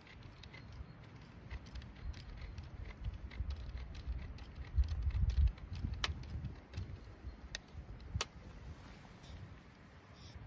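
Wind rumbling and buffeting on the microphone, with three sharp clicks about six, seven and a half and eight seconds in.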